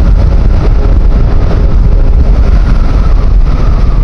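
Wind buffeting the microphone on a moving SYM Husky 150 scooter, with its single-cylinder 150cc engine running steadily underneath the loud low rush.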